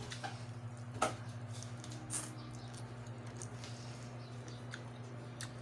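Close-up eating sounds: soft chewing and small wet mouth clicks, with a sharper click about a second in and a short hiss a little after two seconds, over a steady low hum.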